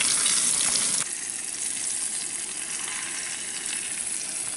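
Whole brook trout frying in hot butter in a stainless steel pan on a propane camp stove, sizzling steadily. The sizzle drops suddenly to a lower level about a second in.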